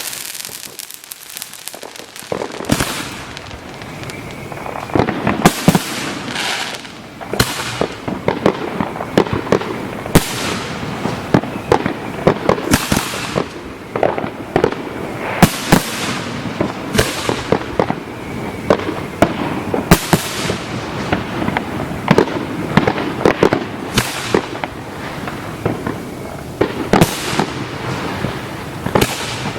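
Fireworks display heard from close to the firing site: after a short lull, a rapid run of shells going off in loud, sharp bangs, with crackling filling the gaps between them.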